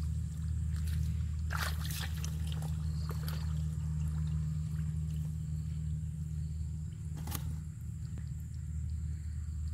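Bare feet wading in shallow muddy water, with sloshing splashes about two seconds in, again around three seconds, and once more near seven seconds, over a steady low hum.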